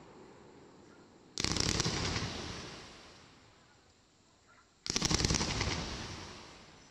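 110-shot fireworks cake firing two rapid volleys about three and a half seconds apart. Each is a fast string of shots that dies away over a second or two.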